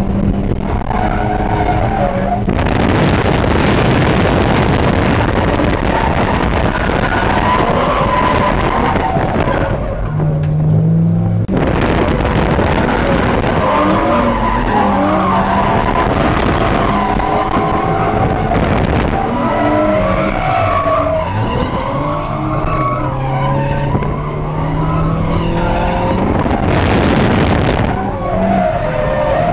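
1992 Eunos Roadster's B6ZE 1.6-litre four-cylinder engine revving hard while drifting, with tyres skidding, heard from inside the open-windowed cabin. About ten seconds in the noise falls away briefly to a low steady engine note before the revs and tyre noise return.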